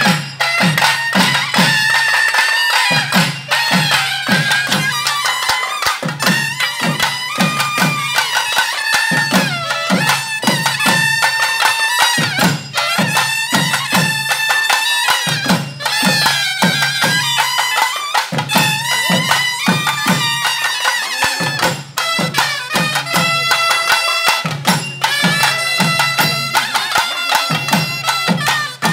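Traditional festival music: a loud, reedy wind instrument plays a gliding melody over rhythmic drumming, the drum phrase repeating about every three seconds.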